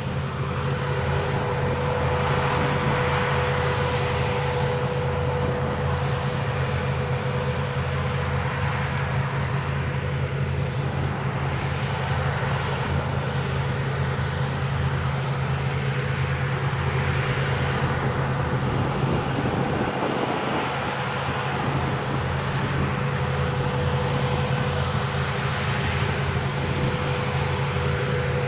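Palesse GS12 combine harvester running steadily while harvesting wheat: a continuous low engine-and-threshing drone with a steady high-pitched whine on top.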